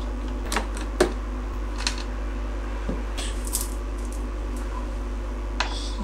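Screwdriver and small metal screws clicking and tapping on a PC motherboard: a handful of separate light clicks, the sharpest about a second in.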